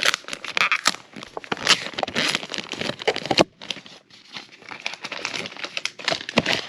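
Plastic packaging crinkling and rustling as it is handled and opened, with a short pause a little past the middle before the crinkling resumes.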